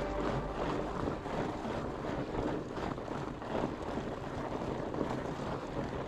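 Wind rushing over the action camera's microphone, with the rumble of fat-bike tyres rolling along a dirt trail.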